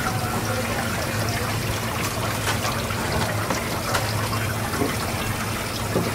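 Tap water running steadily onto a whole fish and a plastic cutting board as hands rinse and rub it, with a few faint wet taps. A steady low hum runs underneath.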